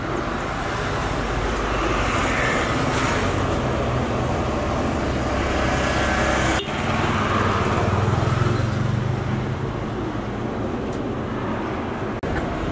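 Steady road traffic noise from passing vehicles, with a low hum underneath and a brief dip about halfway through.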